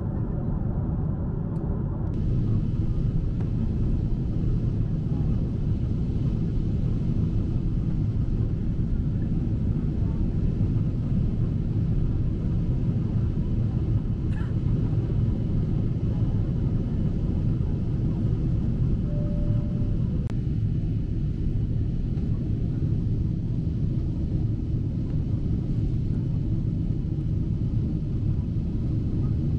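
Steady low rumble of airliner cabin noise inside a Boeing 747-8 in flight: airflow over the fuselage and its GEnx-2B engines running.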